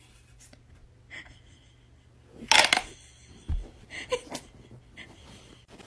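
Wooden letter blocks clattering on their wooden frame as it is turned over, loudest about two and a half seconds in, followed by a thump and a few lighter knocks. A woman's wheezing laughter comes in near the end.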